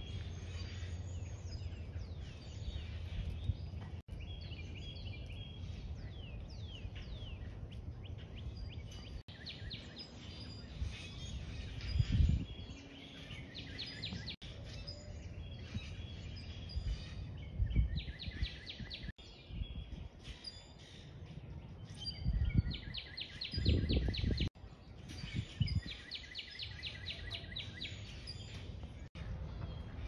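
Small songbirds chirping, with several rapid trills repeating many times and overlapping calls throughout. A few brief low thuds stand out as the loudest moments.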